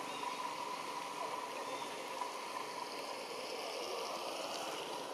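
Steady hiss of falling rain.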